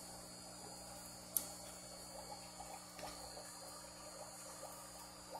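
Steady hum and faint water trickle of aquarium filters and pumps running. There is one sharp click about a second and a half in.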